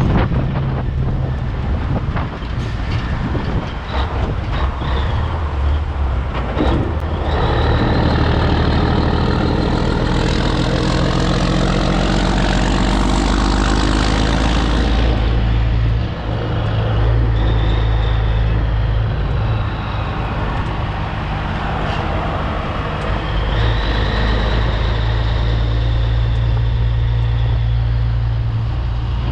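Diesel engine of a 1984 Peterbilt 362 cabover semi pulling under load: its pitch climbs as the truck accelerates, drops at a gear change about halfway through, then holds steady.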